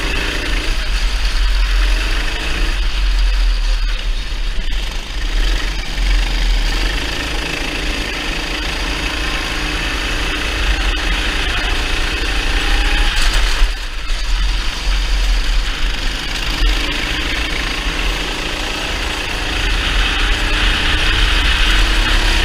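Kart engine at racing speed, heard on board, rising and falling in pitch as the throttle opens and closes through the corners, over a heavy low rumble. The engine note drops briefly about 14 seconds in, then picks up again.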